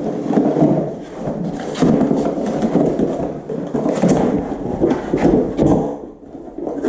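Cardboard shipping box being handled and pulled open: continual rubbing and scraping with many small knocks and clicks.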